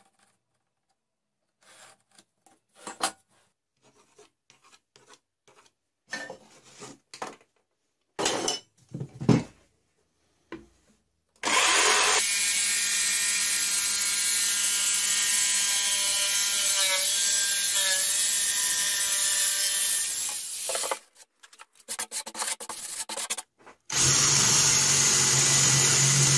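Light knocks and handling of plywood on a workbench, then an electric jigsaw cutting thin plywood for about nine seconds, its motor whine dipping briefly under load midway. After a few more knocks, a cordless drill starts, boring a hole into the plywood.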